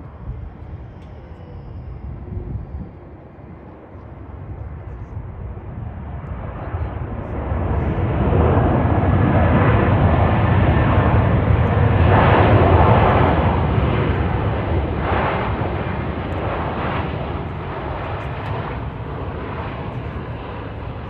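Jet engines of an arriving Airbus A321 airliner, its IAE V2500 turbofans, swelling to a loud rumbling roar about eight seconds in as it passes, then slowly fading.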